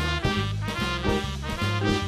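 Swing jazz played live on a drum kit and a hollow-body electric guitar, with a bass line and steady cymbal and drum hits keeping time.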